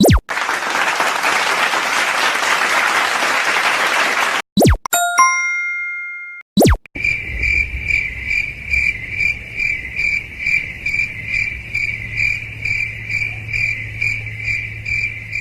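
Sound effects played back to back: about four seconds of hiss-like noise, a click and a quick run of bright chime notes, then, from about seven seconds in, a cricket-chirp effect pulsing a little over twice a second over a low hum.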